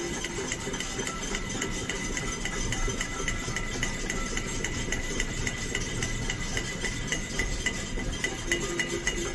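Metal pots and pans being banged in a cacerolada, a pot-banging protest. The strikes are rapid and even, about four a second, each with a short metallic ring.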